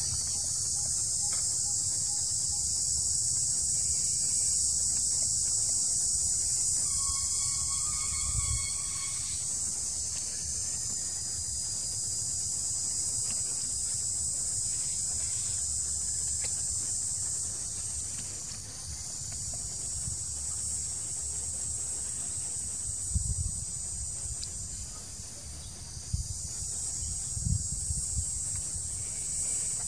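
Steady, high-pitched chorus of insects droning without a break. About a quarter of the way in comes a short pitched call, and near the end a few low thumps sound under the drone.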